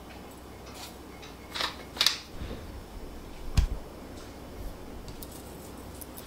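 A few light clicks and knocks of kitchen handling, a seasoning shaker and a wooden spoon against a glass mixing bowl, with one duller knock about three and a half seconds in.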